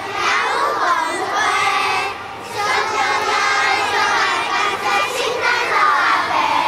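A group of young children singing a Christmas song together, with a short pause a little over two seconds in.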